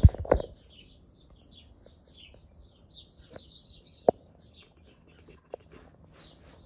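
Small birds chirping busily in quick, short calls. There are two heavy thumps right at the start, and a few sharp clicks later, the clearest about four seconds in.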